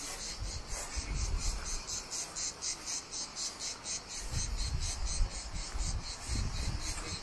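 Insects shrilling in rapid, evenly repeated pulses, about four a second. A low rumbling underneath grows stronger in the second half.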